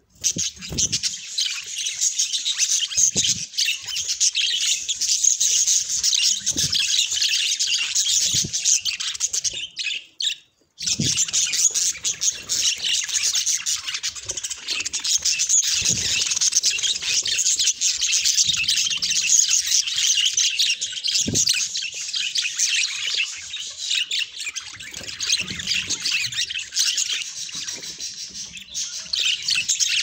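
A flock of budgerigars chattering continuously: a dense, busy mix of chirps, squawks and warbles from many birds at once, with a short break about ten seconds in.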